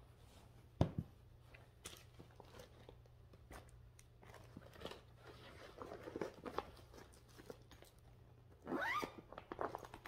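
Rustling and small clicks of a fabric project bag and cross-stitch fabric being handled, with a sharp click about a second in. There is a short rising sound near the end.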